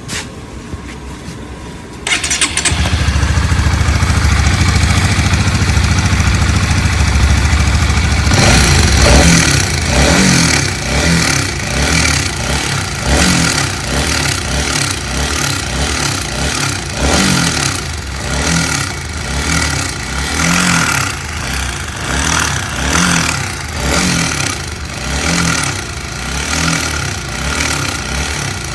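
Honda CBR150's single-cylinder engine started about two seconds in. It runs steadily for several seconds, then is revved up and down over and over, about once a second. Its abnormal engine noise comes from a timing chain stretched so far that the timing adjuster can no longer take up the slack.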